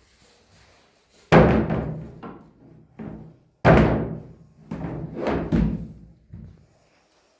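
School chairs clattering: a string of loud bangs and knocks, each ringing out briefly. Two big bangs come about one and three and a half seconds in, then several more in quick succession.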